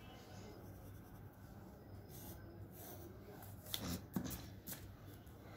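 Graphite pencil drawing on paper, faint, with a few short strokes in the middle, the loudest about four seconds in.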